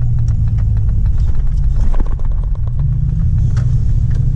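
1999 Dodge Ram 1500 pickup's engine running as the truck is driven, a steady low drone that drops about two seconds in and then picks up again, with scattered light clicks.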